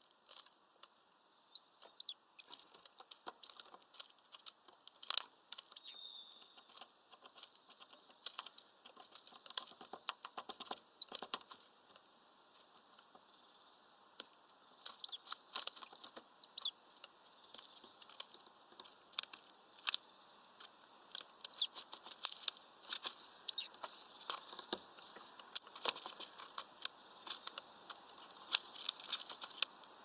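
Small birds, greenfinches and a tit, feeding at a mesh bag of nuts: an irregular run of sharp ticks, taps and rustles from beaks pecking the nuts through the netting and feet shifting on the wooden perch, with faint high chirps behind.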